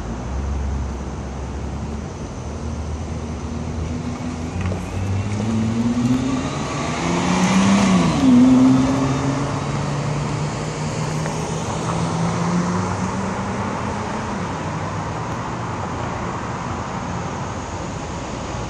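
Nissan GT-R's twin-turbo V6 accelerating away, its note climbing in pitch and growing louder. About eight seconds in it is at its loudest and the pitch drops sharply, then it holds a steadier, lower note that fades out by about fourteen seconds.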